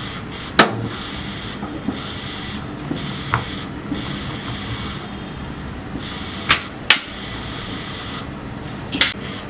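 A few sharp taps of a kitchen utensil against a dish, about half a second in, twice close together around six and a half to seven seconds, and once more near the end. Under them is the steady hum of a microwave oven running its preheat.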